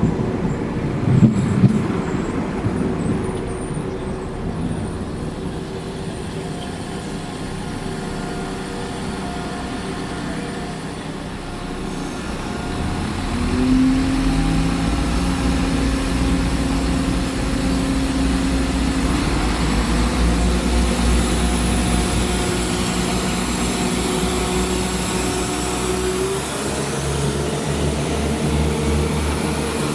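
West Midlands Railway Class 172 diesel multiple units. Early on a unit runs away with a fading rumble. From about fourteen seconds in, another unit's diesel engine comes in loudly with a steady low note as it pulls out along the platform.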